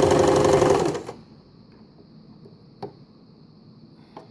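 Empisal Dressmaker 270D sewing machine running at speed, sewing a zigzag stitch, then stopping about a second in. Two light clicks follow later.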